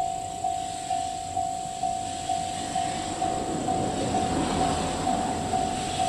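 Japanese level-crossing warning bell ringing steadily, about two dings a second. From about halfway the rumbling run of the approaching C57 steam locomotive swells up beneath it.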